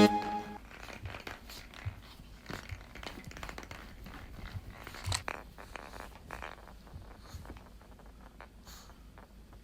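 A small dog moving about and playing, making scattered light taps, scrapes and crunching sounds, loudest about five seconds in and thinning out toward the end.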